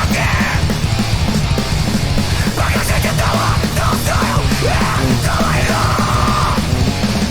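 Heavy metal song playing, with harsh yelled vocals over dense, pounding drums.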